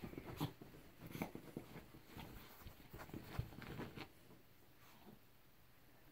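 Cat and small dog play-fighting on a bed: soft scuffling and rustling of the bedspread with scattered light bumps, dying down about four seconds in.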